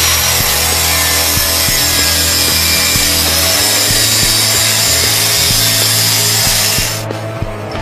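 Angle grinder with a cut-off disc cutting through a toothed steel saw blade: a loud, steady high hiss of the disc in the metal, which stops about seven seconds in.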